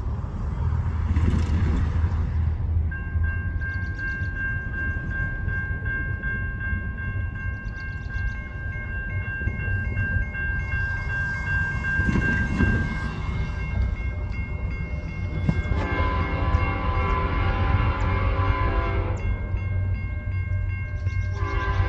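Grade-crossing warning bell ringing as the gates come down, then an approaching CN diesel locomotive's horn sounding a long blast about 16 s in and another starting near the end, over the low rumble of the oncoming freight train.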